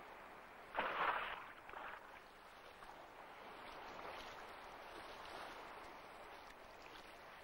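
Water lapping and splashing, with one sudden louder splash about a second in and a smaller one a second later.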